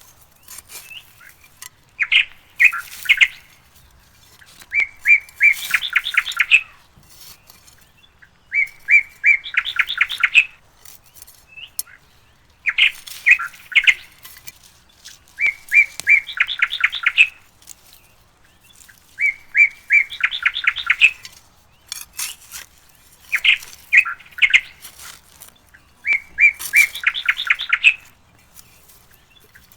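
Bird song: phrases of rapid, fast-repeated chirps, alternating shorter and longer phrases, coming back about every two seconds with short pauses between.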